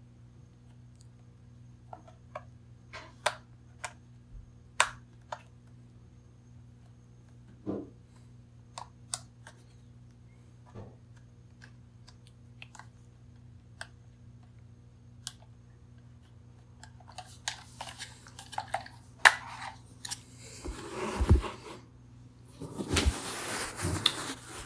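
Scattered small clicks and taps of hands handling hard plastic items, getting busier near the end and turning into rustling packaging, over a faint steady low hum.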